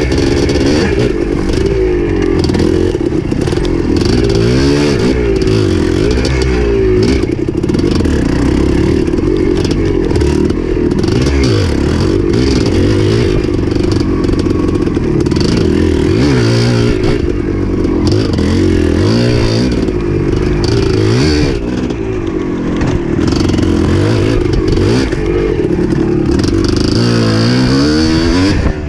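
Dirt bike engine revving up and down over and over as the bike is ridden on a rough trail, its pitch rising and falling every second or two, with frequent knocks from the bike over bumps.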